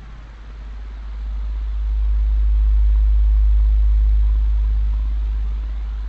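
Synthesized alien radio-signal sound effect: a deep low hum swells up over a bed of static hiss, holds loudest in the middle, then fades away near the end.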